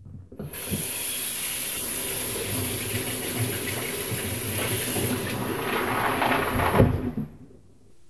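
Water running hard from a tap: turned on about half a second in, it runs steadily with a strong hiss and is shut off at about seven seconds.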